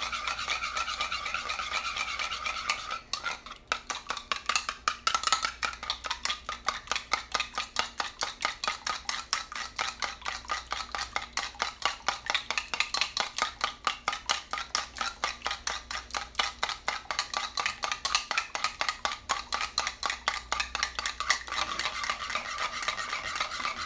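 A raw egg being beaten in a bowl: the utensil clicks against the bowl in a quick, even rhythm of about four or five strokes a second, starting about three seconds in and stopping near the end. A faint steady high whine is heard before and after the beating.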